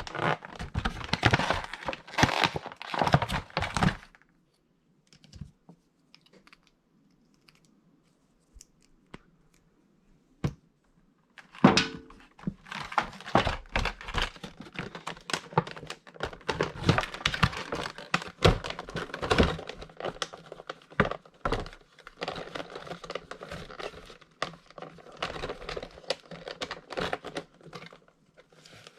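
Plastic and cardboard packaging of a boxed action figure being handled and opened: crinkling, tearing and knocks. A burst of crinkling at the start, a quiet stretch with a few clicks, then a sharp knock with a short squeak about twelve seconds in, followed by continuous crackling and clicking.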